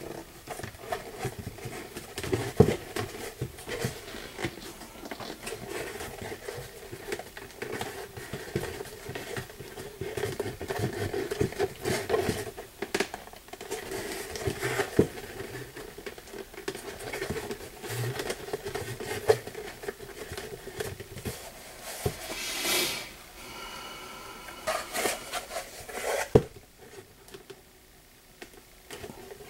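Hands working a vegetable-tanned leather bottom into a leather tankard: irregular rubbing, scuffing and small knocks of leather against leather and the bench, over a faint steady hum. A louder rustle comes about two-thirds through and a sharp click near the end.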